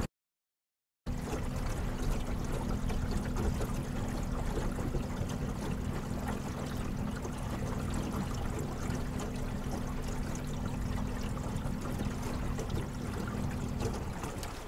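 After about a second of dead silence, an electric trolling motor hums steadily while water rushes and trickles along the moving boat's hull. The motor hum stops near the end, leaving the water sound.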